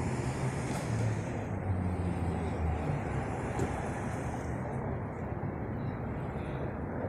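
Steady street traffic noise, with a passing vehicle's low engine hum that fades out about three seconds in.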